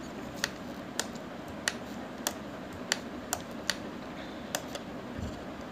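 Scattered single clicks from a computer keyboard and mouse, about eight spread over the few seconds, over a faint steady hum.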